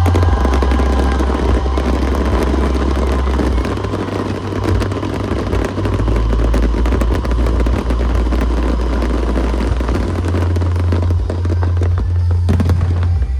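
Fireworks crackling and popping in a dense, continuous run over loud show music with a heavy bass line; the crackling stops abruptly about a second before the end while the music carries on.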